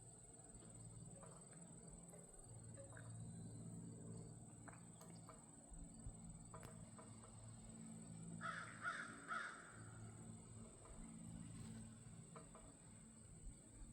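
Three harsh, caw-like bird calls in quick succession about eight and a half seconds in, over a quiet background with a low hum and a steady high thin whine.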